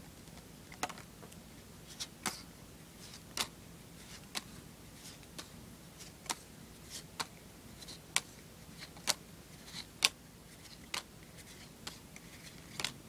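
Dragon Ball Z trading cards being laid down one at a time onto a pile of cards, a short sharp click with each card, about one a second at an uneven pace.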